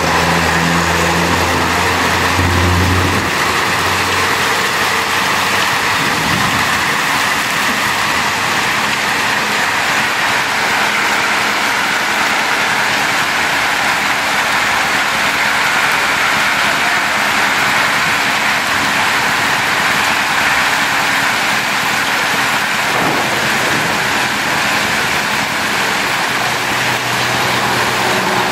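Heavy rain mixed with hail pelting down on a street, a steady dense hiss. A low engine hum runs underneath for about the first three seconds.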